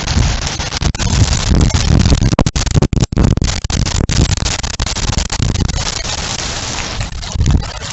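Heavy rain and strong wind gusts during a windstorm, the wind buffeting the microphone in low rumbling surges; the sound cuts out for an instant about three seconds in.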